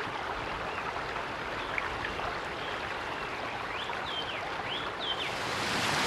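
Mountain stream rushing over rocks, with a few short bird chirps about four seconds in. Near the end the water gets louder and brighter, turning into churning rapids.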